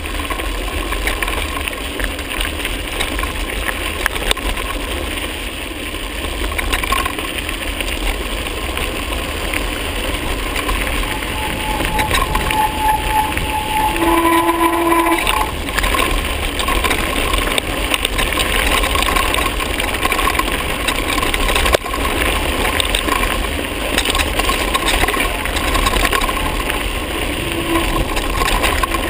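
Wind buffeting the microphone of a camera moving with a mountain bike ride, over the steady hiss and rattle of tyres rolling on a loose gravel track. A brief whistle-like tone sounds about halfway through.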